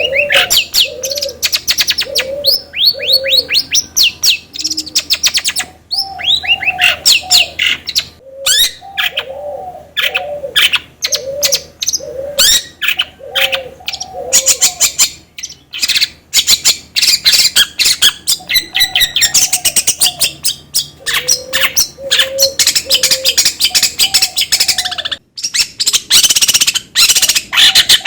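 Long-tailed shrike (cendet) singing a loud, rapid, non-stop song of chirps, trills and falling whistles, over a repeated low two-note phrase. It is a lure recording of the kind played to spur a cage cendet into singing.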